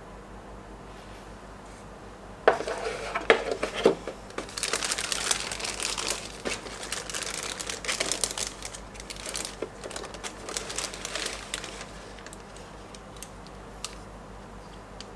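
Packaging crinkling as it is handled and pulled apart: a few sharp snaps, then several seconds of dense crackling that thins out into scattered small clicks.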